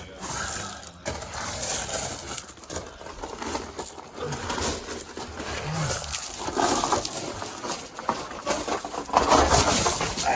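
Scuffling, crunching footsteps and scraping on loose gravel and rubble, with two short low grunts about four and six seconds in and the loudest scraping near the end.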